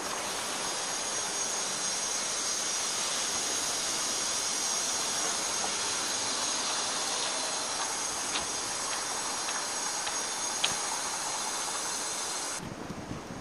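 Steady hiss of city street traffic, with a few faint clicks in the second half; the noise drops off sharply shortly before the end.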